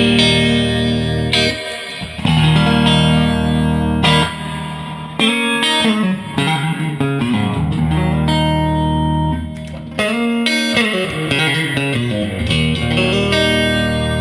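Electric guitar, a Stratocaster, played clean through a Fender Twin amplifier with some reverb: strummed chords ring out and change every second or two, broken by a run of descending single notes near the end.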